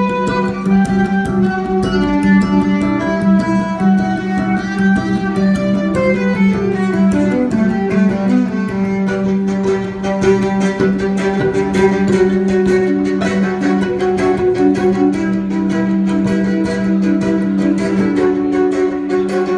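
Background music: guitar and string instruments over a steady low held note, with a regular beat.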